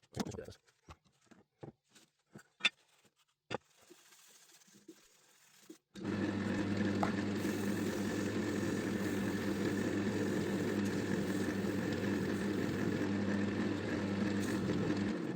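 A few scattered clicks and knocks of handling, then a wood lathe running with a steady motor hum and hiss, starting abruptly about six seconds in and cutting off just before the end.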